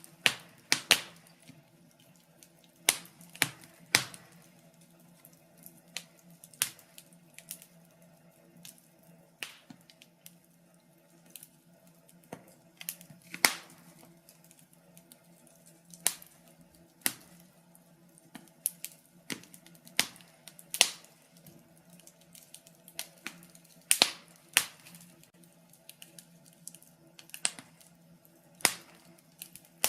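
Wood fire crackling in a fireplace: irregular sharp pops and snaps, some louder than others, over a faint steady hum.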